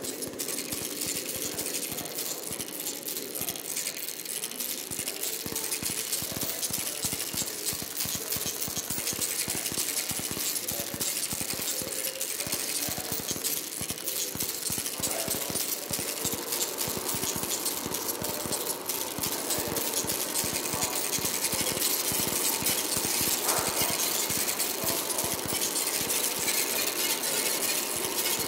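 Glitchy electronic noise from an audio-visual installation's stereo soundtrack: a dense stream of rapid crackling clicks over hiss, growing slowly louder.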